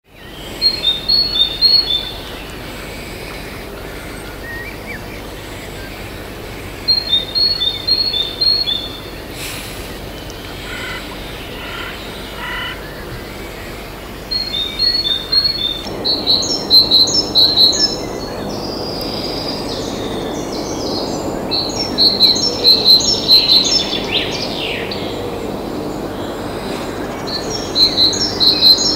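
A small songbird repeating a short phrase of quick, high chirps about five times, several seconds apart, with fainter calls from other birds behind it.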